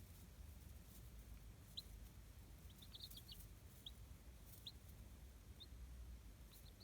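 Chicks peeping faintly: a scattering of short, high chirps, with a quick run of several together about halfway through, over a faint low hum.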